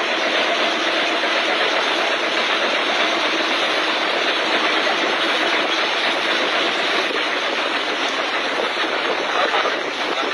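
Steady, loud engine noise from the boat, mixed with wind and sea noise.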